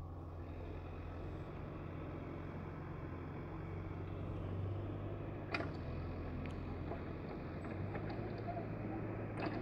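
Truck's diesel engine running steadily with a low hum, with two sharp clicks, one about halfway through and one near the end.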